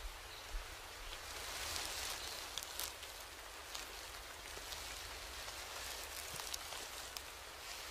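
Steady soft patter like light rain, with scattered faint ticks.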